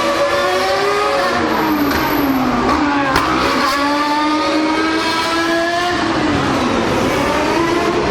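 Formula One cars' 2.4-litre naturally aspirated V8 engines at high revs, more than one car heard at once. The pitch falls as they slow, then climbs steadily through the gears, drops at a gear change about six seconds in, and climbs again.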